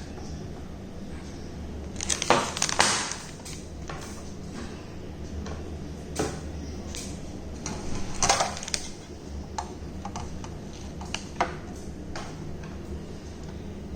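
Clicks and rattles of metal and plastic parts being handled while a DVR's hard disk is worked on, with two busier bursts and scattered single clicks. A steady low hum sits underneath.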